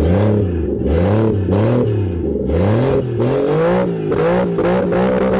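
Car engine revved in repeated quick throttle blips, its pitch rising and falling about once a second. It is loud because it is running through an open downpipe with the exhaust caps off.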